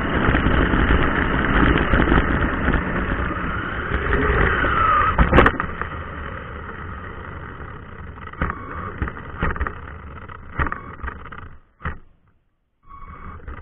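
Xinlehong 9125 RC truck driving on pavement: a loud, steady rush of electric motor, gears and tyres with a brief falling whine, then a sharp knock about five seconds in. After the knock it runs more quietly, with scattered knocks, and the sound cuts out for about a second near the end.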